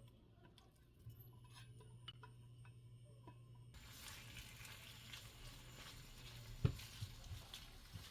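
Kitchen cooking sounds: light utensil clicks and taps, then a steady hiss from about four seconds in, with a sharp knock a little later.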